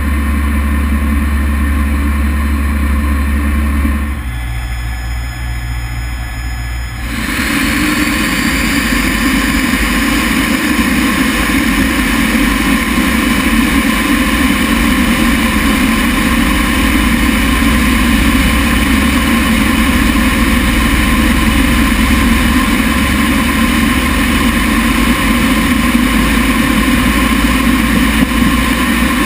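T-33 jet's Allison J33 turbojet running: a steady low hum at first, a short quieter stretch, then about seven seconds in the jet roar comes up loud with a rising whine and holds steady.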